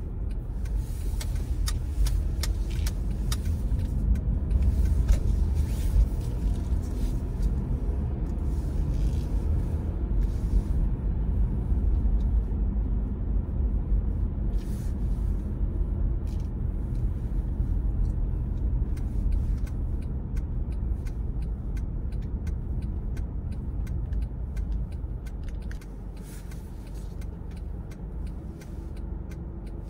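Car driving along a road: a steady low rumble of engine and tyre noise with scattered light clicks, easing off a little near the end.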